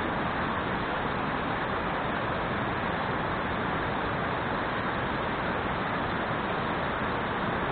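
Steady rushing of stream water, an even hiss with no breaks.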